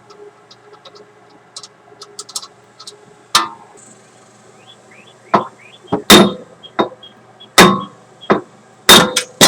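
Hammer blows on steel, about ten sharp ringing metallic strikes in the second half, irregularly spaced, with faint ticks before them: knocking a rusted-on rear wheel hub assembly loose.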